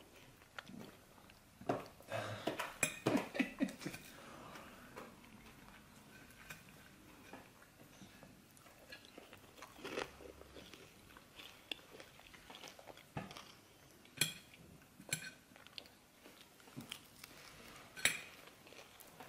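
A baby's hands tapping and patting a plastic high-chair tray while picking up small pieces of food: scattered quiet taps and clicks, with a livelier cluster about two seconds in and a few sharper taps near the end.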